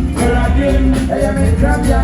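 Live band playing an upbeat song, with heavy bass and a steady drum beat under a wavering melody line.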